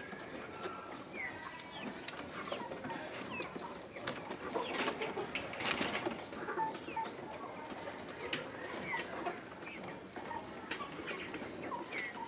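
Improved Kienyeji chickens clucking and cheeping softly in their cage, with scattered short clicks and some rustling.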